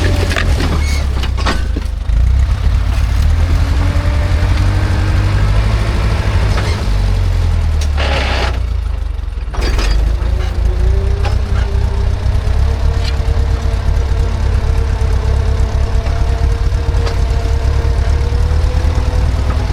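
Ursus C-360's four-cylinder diesel engine running under load while pulling a disc harrow: a steady heavy rumble with occasional short knocks and clanks. About halfway through the sound briefly drops away, then the engine comes back with its note climbing slowly.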